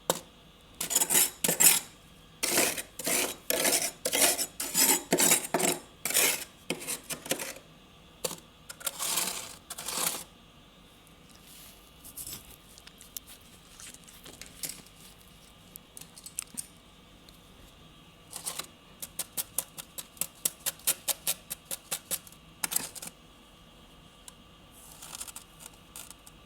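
Built-up freezer frost being scraped, close up: a series of hard scraping strokes, then quieter scraping, then a fast run of short strokes at about four a second.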